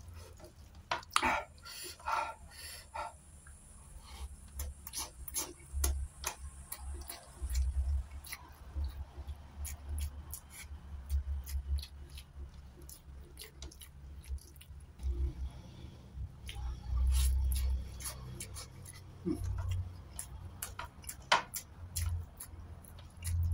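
A person chewing a mouthful of rice and sardines close to the microphone, with many sharp, wet mouth clicks and smacks and soft irregular thumps of chewing.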